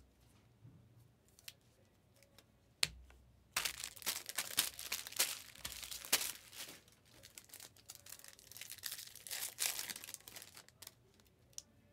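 A trading-card pack being torn open and its wrapper crinkled: a dense run of ripping and crackling lasting about seven seconds, after a single sharp tap about three seconds in.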